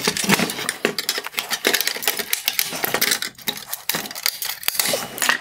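Rapid hard-plastic clicking, tapping and scraping as the chrome-plated trim ring is worked loose from a Mercedes-Benz W204 C-Class halogen headlight's projector, its small locking clips clicking against the housing.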